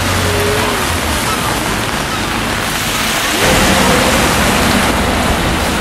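Wet-street ambience in the rain: a steady hiss of rain and traffic on the wet road, with a vehicle engine's low hum coming in about three and a half seconds in.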